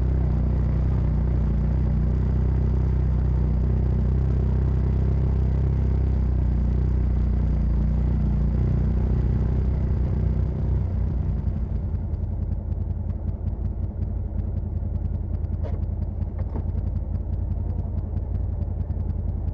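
Side-by-side UTV engine running as the machine drives along, a steady low rumble. About ten seconds in it drops to a lower, quickly pulsing note, as when the machine eases off.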